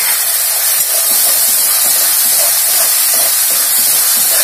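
Ginger-garlic paste frying in hot mustard oil in a kadhai: a steady, loud sizzle.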